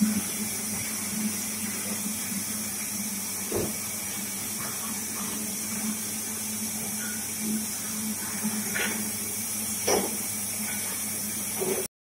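Glass bottle washing machine running: a steady hiss of its rinse jets over a low motor hum, with a few short knocks, the loudest near the end. The sound cuts off suddenly at the very end.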